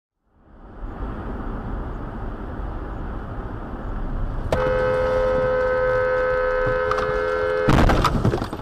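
Car driving with steady road noise, then a car horn held for about three seconds. Near the end a loud crash cuts the horn off as the car collides with a minivan pulling out in front of it.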